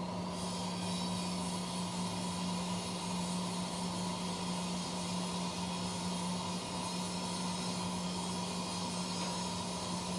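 CNC machine running: a steady low hum and a steady mid-pitched whine, with a high hiss that comes in at the start and holds.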